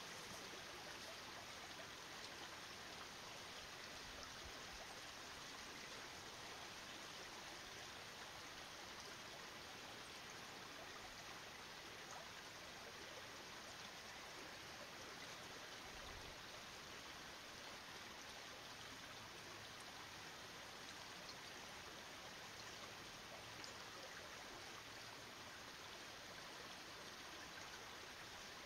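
Faint, steady rush of running water from a stream, with no calls or other events standing out.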